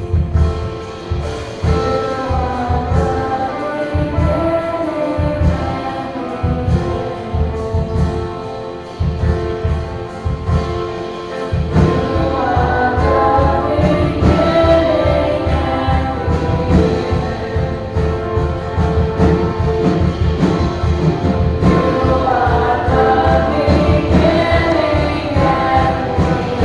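Live contemporary worship band playing a song with sung vocals over a steady beat. The band fills out and gets louder about halfway through.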